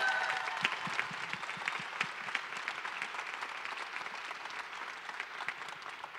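Audience applause: many hands clapping, loudest at first and slowly dying away.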